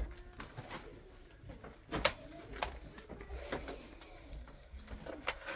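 Low cooing bird calls, with several sharp knocks and clicks; the loudest knocks come about two seconds in and again near the end.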